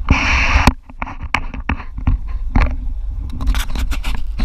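Wind buffeting an action camera's microphone during a parasail flight: a steady low rumble with a burst of hiss just after the start. Irregular knocks and clicks run throughout, crowding together near the end as a hand handles the camera, with rubbing and scraping against it.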